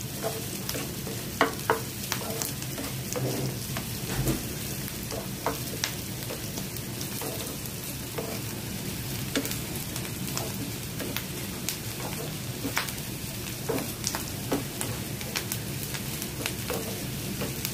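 Chopped onions, garlic, ginger and green chilli sizzling in oil in a nonstick frying pan, stirred with a wooden spatula that scrapes and taps against the pan many times. The turmeric powder just added is being sautéed in the oil.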